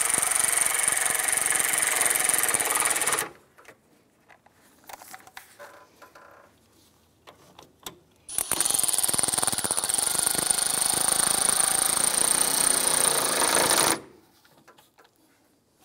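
Cordless electric ratchet running bolts down: a steady high-pitched motor whine with rapid rattling, which stops about three seconds in and starts again for about five and a half seconds from near the eight-second mark. Light handling clicks in the gap.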